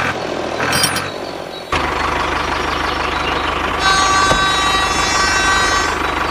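An engine running steadily with a fast low chugging, which begins abruptly about two seconds in. A horn sounds over it for about two seconds near the middle.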